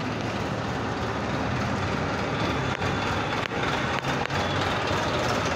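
Diesel tractor engines running steadily as a column of tractors drives along, heard from aboard one of the tractors.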